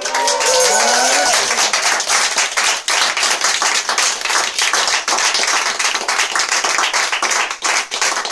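A small audience clapping steadily, with a few voices calling out in the first second.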